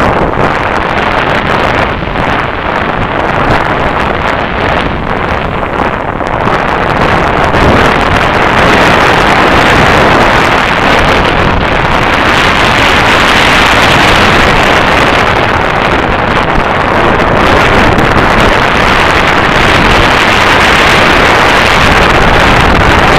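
Loud rush of wind on the camera's microphone as a mountain bike descends a dirt trail at speed, with tyre and frame clatter over the rough ground. The rush grows louder about eight seconds in.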